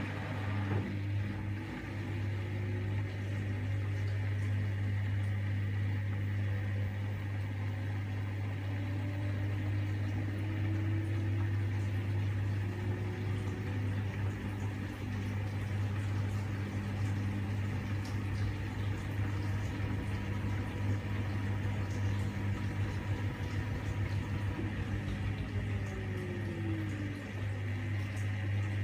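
LG TurboWash front-loading washing machine in its final spin, the drum turning at high speed with a steady low hum from the motor and drum and a rushing noise over it.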